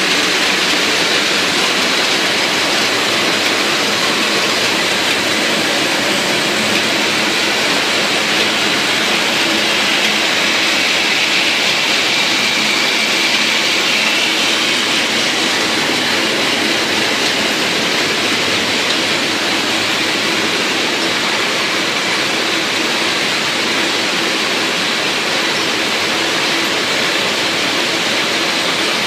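Hop-picking machine running: a loud, steady mechanical rush and clatter from its spiral cleaning rollers and conveyors carrying hop cones and leaves, with no pauses or changes.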